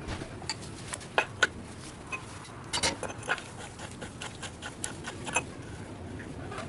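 Irregular light clicks and knocks of hand tools and metal hub parts being handled while a Jeep's front hub assembly is taken apart, with two sharper knocks about a second in.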